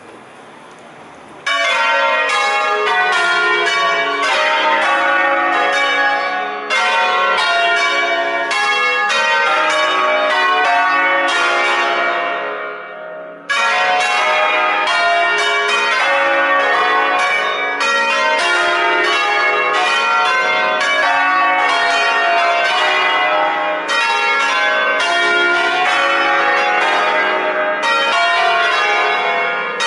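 Eight-bell ring in D-flat, cast by Crespi in 1951, rung in concert: bells swung full circle on their wheels, striking in quick melodic sequences with overlapping ringing. It starts about a second and a half in, dies away briefly around the middle, then starts again and keeps going.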